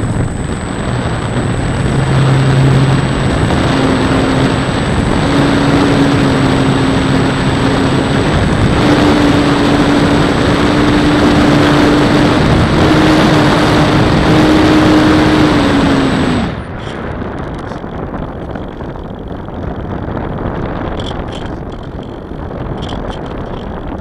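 Motor and propeller of an RC model airplane running at steady high power, its hum creeping slightly higher in pitch, with a thin high whine over it. About sixteen seconds in the motor cuts off suddenly, leaving only wind rushing over the microphone as the plane glides.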